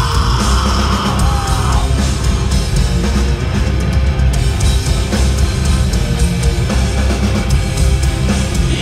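Rock band playing live at full volume: distorted electric guitars, bass and drum kit in an instrumental stretch without singing.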